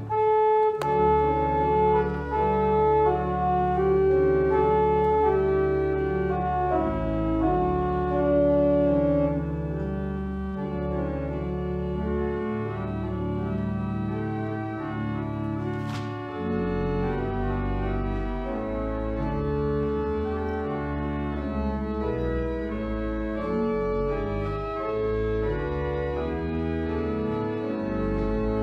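Organ playing a prelude of held chords under a moving melody line, with a single click about halfway through.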